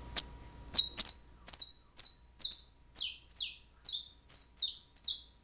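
Domestic canary chirping: about a dozen sharp, high notes, each sliding down in pitch, two or three a second.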